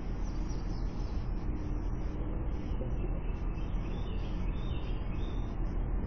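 Steady outdoor background noise heard through a security camera's microphone, with faint bird chirps in the second half.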